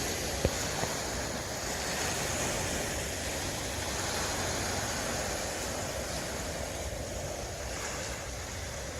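Steady wash of waves on the shore, with a single sharp click about half a second in.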